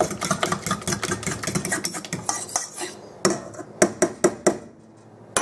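A fork stirring batter in a metal mixing bowl, clicking and scraping against the bowl quickly and steadily. About three seconds in, the stirring gives way to a handful of separate, sharper clinks of the fork on the bowl.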